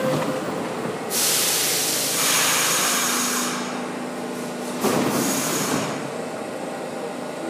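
A stopped R62A subway car hissing loudly as air is let out, twice: a long hiss about a second in and a shorter one near the middle, with a steady low hum between them.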